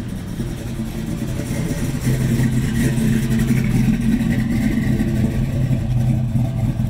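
Engine of a classic pickup truck running as it drives slowly past close by and pulls away; the engine sound grows louder about two seconds in as the truck comes alongside.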